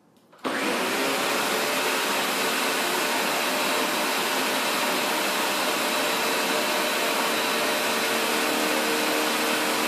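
Ninja countertop blender switched on about half a second in, its motor note rising as it spins up, then running steadily at high speed while it blends a shake.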